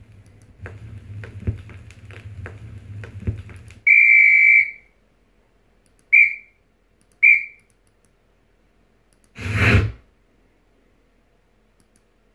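Whistle sound effects: one steady high whistle tone lasting under a second, then two short toots at the same pitch, then a brief burst of noise about two seconds later. Before the whistle, a few soft clicks and rustles over a low hum.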